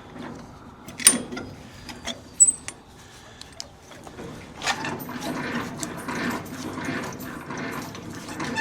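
Trailer landing gear being lowered with its hand crank: a few sharp clicks, then from about halfway in a rapid, continuous gear-and-ratchet clatter lasting about four seconds.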